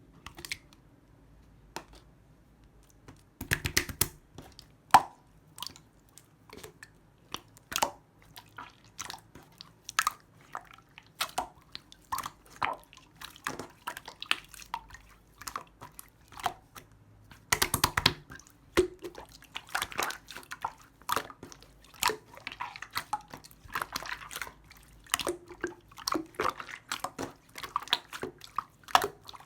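Slime being squished, pressed and stretched by hand, making irregular wet clicks and pops, with two denser bursts of crackling about four seconds in and again near the middle.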